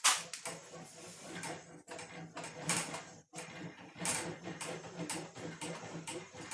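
Sheet-steel patch panel being rolled back and forth through a benchtop English wheel. An uneven rolling, rasping noise swells and fades every second or so, with its sharpest stroke at the very start.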